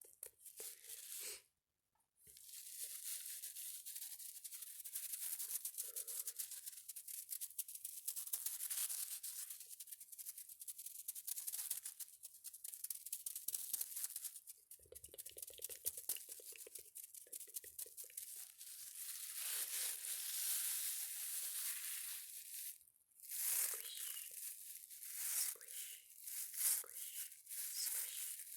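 Close-miked crunchy, crinkly scratching and rustling of a handheld ASMR trigger object, made of many fine rapid crackles. It breaks off briefly about two seconds in and again about twenty-three seconds in.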